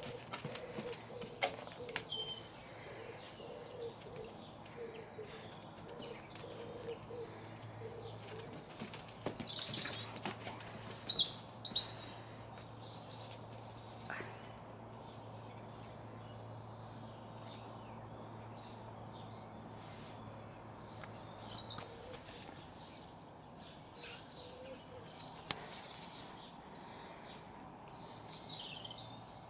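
Small birds chirping and singing, with a scatter of sharp clicks from the dog's claws and its toy on stone paving slabs, thickest in the first half. A low steady hum sits underneath through the middle stretch.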